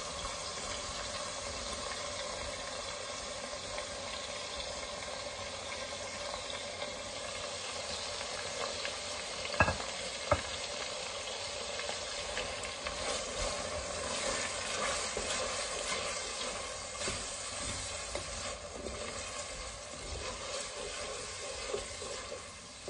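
Chopped onions and tomatoes frying in oil in a pot: a steady sizzle with fine crackles. There are two sharp knocks about ten seconds in, and a wooden spoon stirs the pot near the end.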